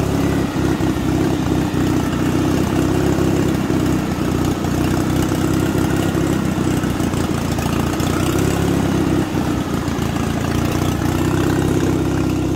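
Riding lawn mower's small engine running steadily, with a little rise and fall in level.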